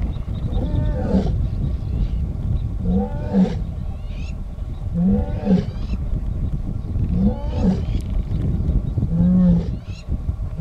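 Lioness roaring: a series of five short calls about two seconds apart, each in two parts. She is calling to other members of her pride.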